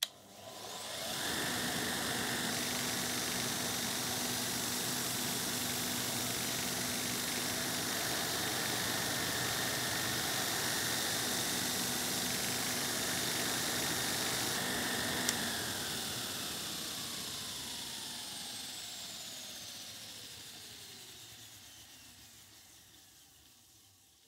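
Belt grinder driven by an old single-phase, 2-pole, 750 W pool pump motor, switched on and spinning up within about a second, then running steadily with the belt whirring. About 15 seconds in a click turns it off, and the motor and wheels coast down, the pitch falling steadily as they slow.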